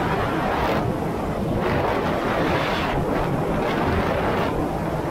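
Jet ski running at speed across calm water, its engine and rushing water heard under uneven wind buffeting on the camera microphone.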